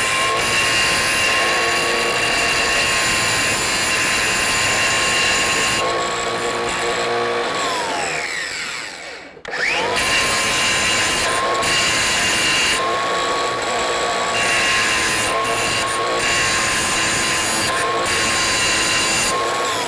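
Cordless 4-inch angle grinder with an abrasive disc running at a steady whine while grinding the burr off the cut end of a threaded rod. It winds down with a falling pitch about eight seconds in, is started again about ten seconds in, and winds down again near the end.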